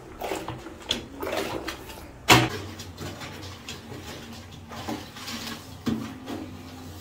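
Household knocks and bumps, as of things being handled, over a faint low hum, with one sharp, loud knock a little over two seconds in.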